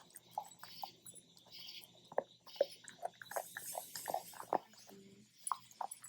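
Puppies chewing and gnawing raw oxtail: irregular crunches and clicks of teeth on bone and meat, two or three a second.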